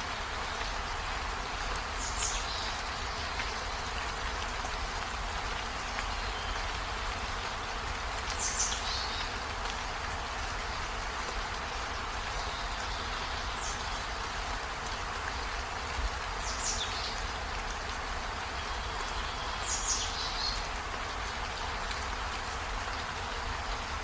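Steady rain falling, an even hiss. A bird calls five times over it, each a short high call falling in pitch.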